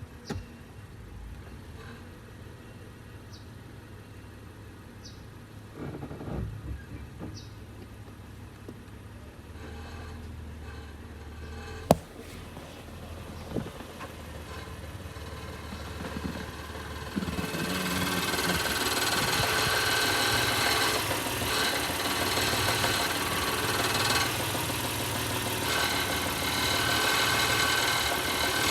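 2017 Honda Pilot's 3.5-litre V6 running, with a low hum and a few faint ticks and one sharp click. About two-thirds of the way in it becomes much louder, with an even noise across all pitches. The owner finds the noise strange and cannot place its cause.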